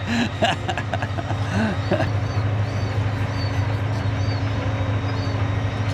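A vehicle engine running steadily, a low continuous hum.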